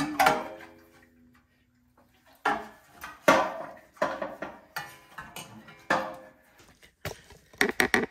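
Knocks and clatter of metal and plastic parts and tools being handled as a snowblower's gas tank is unbolted, lifted off and set aside, one knock ringing briefly at the start. About six separate clunks come in the middle, and a quick run of ticks near the end.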